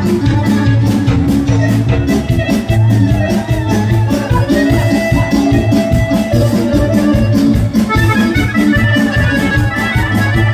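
Lively Bosnian folk music for kolo dancing, with pitched melody over a steady, fast beat.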